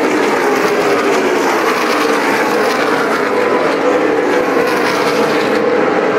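NASCAR Sprint Cup stock cars' V8 engines running laps on the track, a loud, steady engine drone.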